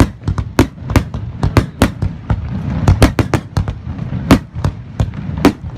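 Fireworks display: a rapid string of sharp bangs and cracks, several a second, over a low rumble of booms.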